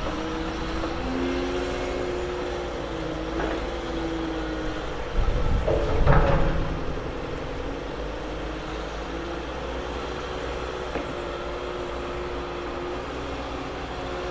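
Red DB S-Bahn electric multiple unit approaching a station: a steady electric hum with a few faint wavering tones. A brief louder rumble comes about six seconds in.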